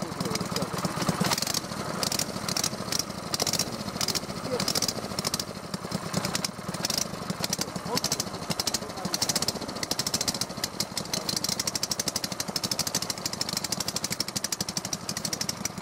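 Small single-cylinder four-stroke petrol engines of a twin-engine airboat propulsion unit running just after a cold start, choke closed and throttle held open by hand, warming up. The rapid firing is uneven at first and grows faster and more regular about ten seconds in.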